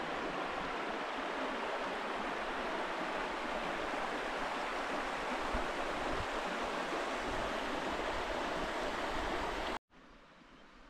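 Shallow rocky brook running over stones: a steady rush of water. It cuts off abruptly near the end, leaving a much quieter outdoor background.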